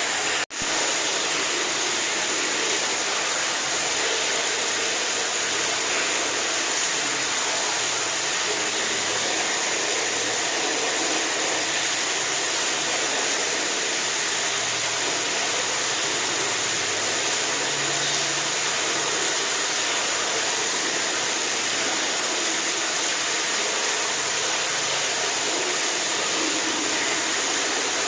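Steady rushing water, a dense, even hiss, broken by a momentary dropout about half a second in.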